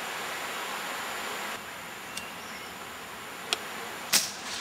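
Steady buzzing and hissing of insects, with a short sharp noise near the end.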